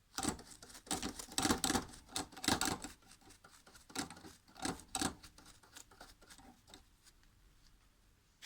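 Hard objects being handled: a quick run of clicks, clatter and scraping over the first three seconds, then two shorter bursts about four and five seconds in.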